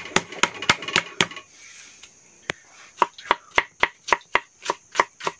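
Kitchen knife chopping fresh ginger on a thick round wooden chopping block. A quick run of chops, a pause of about a second and a half with one lone stroke, then steady chopping at about four strokes a second.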